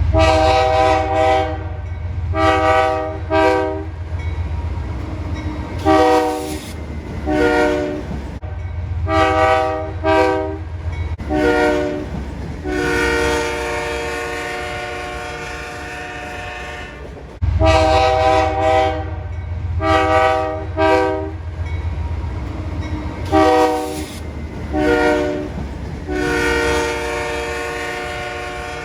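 Freight train's air horn blowing repeatedly and loudly: a series of short blasts, some in quick pairs, mixed with longer held blasts, the longest about four seconds. Each blast sounds as a chord, and the train runs with a low rumble underneath.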